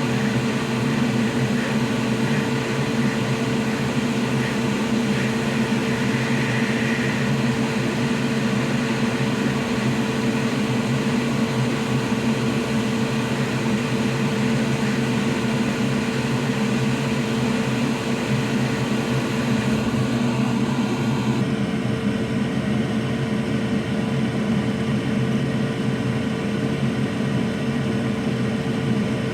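Steady electric blower hum with a constant mid-pitched tone and an even hiss; the upper hiss thins out about two-thirds of the way through.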